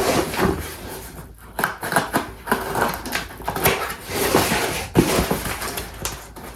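A mail package being handled and torn open by hand: dense rustling and crinkling of the packaging, with scattered sharp crackles.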